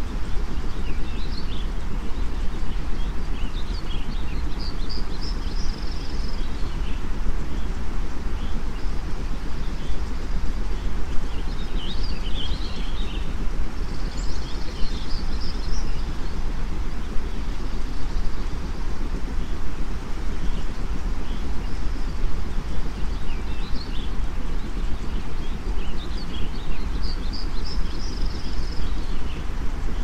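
Steady white noise, heaviest in the low end, mixed with bird chirping that comes in three spells of several seconds each.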